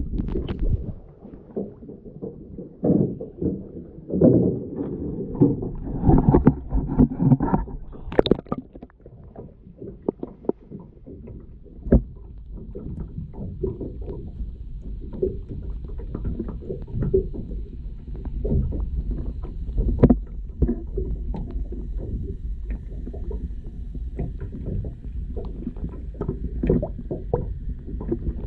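Water sloshing and knocking against an underwater camera's housing, heard muffled from below the surface, with irregular low bumps and a sharp knock about twelve seconds in. A faint steady high hum joins about halfway through.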